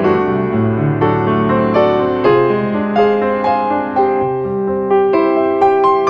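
Background piano music: a slow melody of struck notes, about two a second, ringing on over lower held notes.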